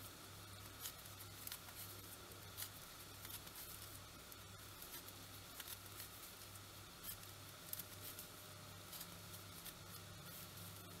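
Faint, irregular small clicks and ticks of 3.25 mm knitting needles working yarn, several a second, over a low hum that pulses about twice a second.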